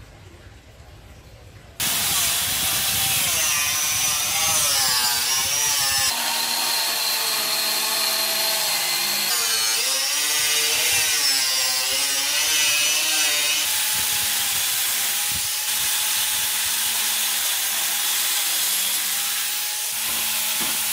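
Handheld power cutter with a toothed cutting disc switching on about two seconds in and cutting lengthwise through a PVC pipe. The motor's pitch wavers as the disc bites into the plastic and steadies during the freer stretches between.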